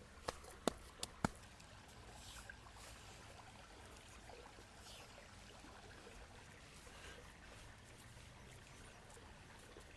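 Campfire crackling: four sharp pops in the first second and a half, then a faint steady hiss.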